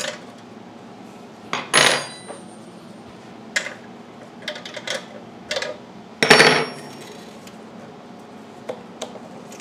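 Metal clinks and clatter of mounting bolts and hand tools being handled while bolting an engine onto an edger's steel deck: a series of separate sharp clinks, two of them louder with a brief metallic ring, about two seconds in and again about six seconds in.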